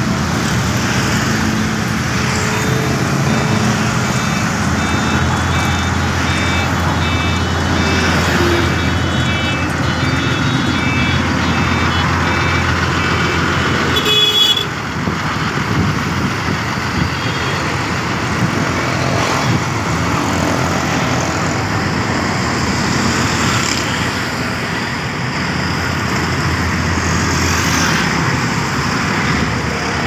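Diesel engine of a pneumatic-tyred road roller running steadily, mixed with passing road traffic and motorcycles. High beeping tones sound on and off through the first half, and a short horn blast comes about halfway through.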